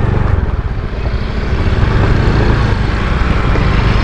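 Small motor scooter's engine running while riding, with steady road noise over it; the engine note dips briefly about a second in, then steadies.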